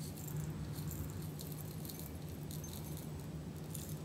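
Potassium iodide crystals shaken out of a plastic bottle into a glass beaker: an irregular light rattle of granules falling onto glass and onto the crystal pile, over a steady low hum.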